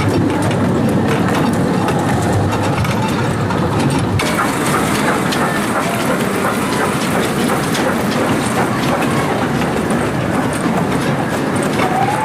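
Children's amusement-park mini train running along its track, its wheels clicking over the rail joints in a steady clatter.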